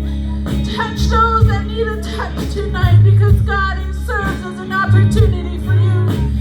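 Live worship song: a woman singing the melody over sustained bass and instrumental accompaniment.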